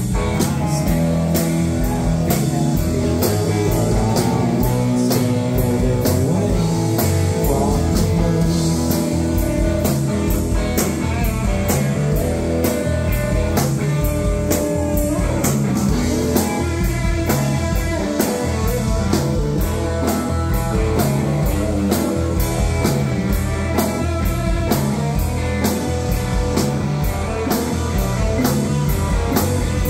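Live rock band playing electric guitars, acoustic guitar and drum kit, loud and continuous, with drum hits keeping a steady beat.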